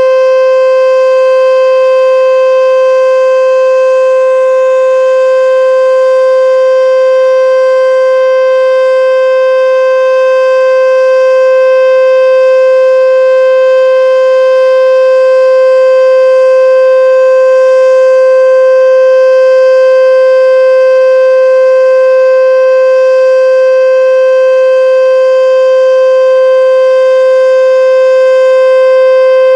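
H.O.R Super Sirex single-tone outdoor warning siren sounding the full alert signal: one very loud, unbroken tone held at a constant pitch.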